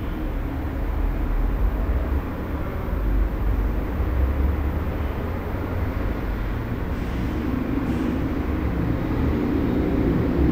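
Residential room tone: a steady low hum and rumble with a faint hiss above it.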